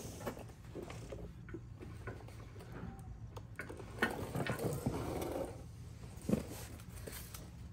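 Small flat screwdriver scraping and picking at the old drain plug gasket stuck to the oil pan around the drain hole: scattered metal clicks and scratches, busiest about four to five seconds in, with one sharper knock a little after six seconds.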